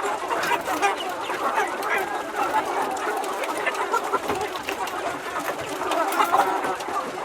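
A flock of chickens clucking, many birds calling over one another without a break.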